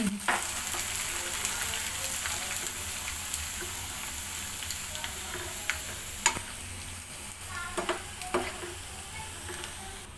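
Jhuri pitha, thin strands of dried rice dough, sizzling as they deep-fry in hot oil in a wok, getting slowly quieter. A spatula stirs them, clicking sharply against the pan a few times, loudest about six seconds in.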